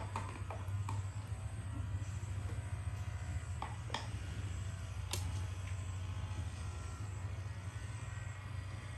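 A small electric motor humming steadily, with a few sharp clicks and taps scattered over it.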